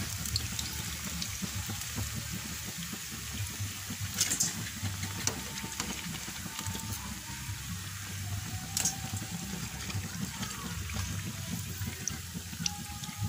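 Banana lumpia deep-frying in hot oil: a steady sizzle with crackling. Occasional sharp clicks as metal tongs turn the rolls and lift them out of the pan.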